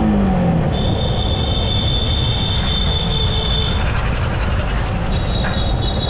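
Motorcycle riding noise: a steady low rumble of engine, wind and road, the engine note falling in the first half second. A high, steady squeal sounds for about three seconds, breaks off, and starts again near the end.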